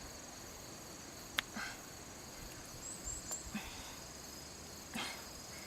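Faint, steady high-pitched insect trilling, with a few soft clicks and rustles scattered through.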